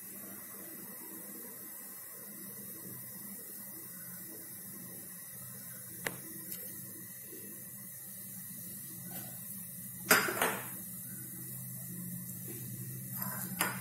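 Cumin and mustard seeds sizzling faintly in hot oil in a nonstick kadai over a steady low hum, with a small click about six seconds in and a louder short sudden sound about ten seconds in.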